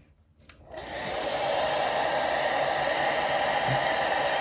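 Handheld hair dryer switched on about a second in, running steadily to dry the lace glue under a wig's lace.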